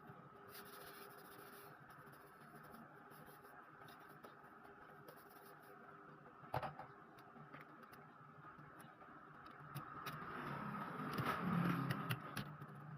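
Faint handling noises: light clicks and scratching over a steady low hum, with a sharper click about six and a half seconds in and the scratching growing louder for a couple of seconds near the end.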